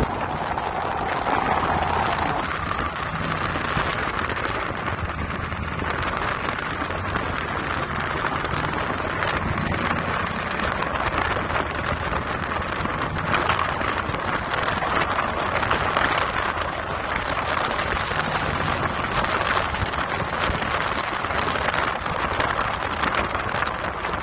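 Steady rush of wind buffeting the microphone, with road noise from a moving car.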